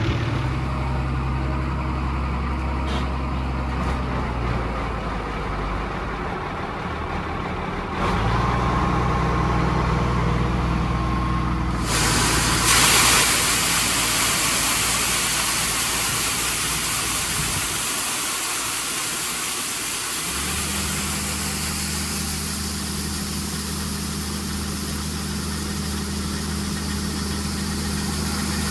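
Combine harvester's diesel engine running steadily, its note shifting about eight seconds in and again near twenty seconds. A steady hiss comes in about twelve seconds in and stays.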